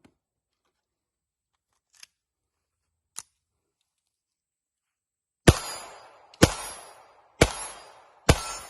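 Ruger Mark IV Target .22 LR semi-automatic pistol firing four shots at a steady pace, about one a second, starting about halfway through; each crack is followed by a short echoing tail. Before them come two faint clicks.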